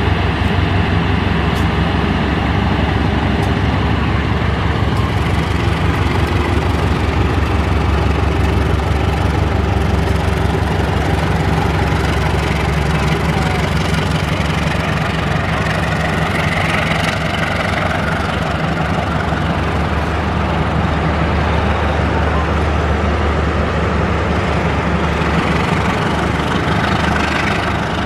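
Diesel locomotive engine running with a steady low drone as it hauls a passenger train along the tracks.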